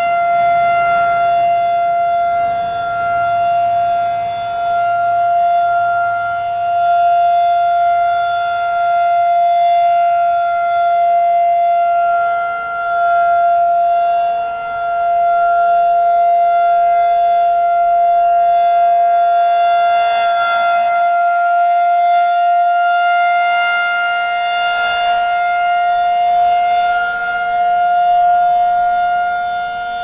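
Federal Signal 2001-SRN rotating mechanical warning siren sounding its steady Alert signal: one loud held tone at constant pitch, swelling and dipping in loudness as the horn turns.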